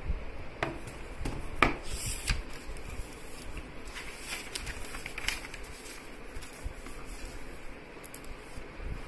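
Handling noise: scattered light clicks and knocks and brief paper rustles as a clipboard of question sheets is moved about, over steady low room noise. The sharpest knock comes about one and a half seconds in.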